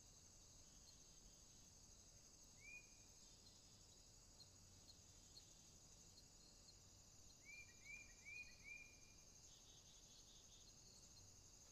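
Near silence with a faint, steady high insect trill, like crickets, and a few short chirps: one about two and a half seconds in, then four in quick succession about seven and a half seconds in.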